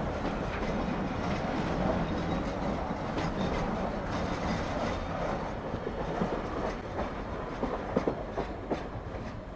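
Freight train of loaded container flat wagons rolling past with a steady rumble, its wheels clattering over the rail joints. There are a few sharper clacks near the end as the last wagon goes by.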